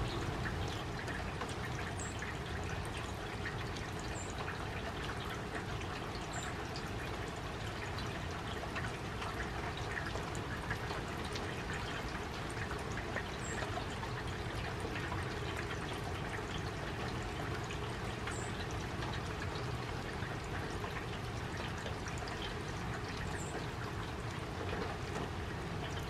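Steady rain falling on a shallow puddle among wet leaves and grass: a dense, even patter of drops splashing into water.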